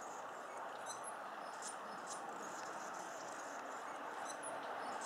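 Male Anna's hummingbird singing: short bursts of high, squeaky notes, once about a second in and again near four seconds, over a steady background rush.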